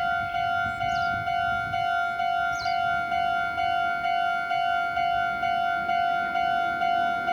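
Japanese railroad crossing alarm ringing its 'kan-kan' warning, an evenly repeating tone with overtones at about two strikes a second, signalling that a train is approaching.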